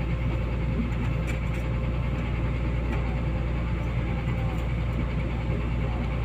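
Engine idling steadily: a constant low drone with a steady hum running through it.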